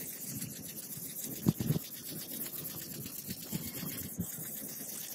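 Gloved hands handling and rubbing a steel knife blade against a wooden board: irregular scuffing, with two sharp knocks close together about a second and a half in.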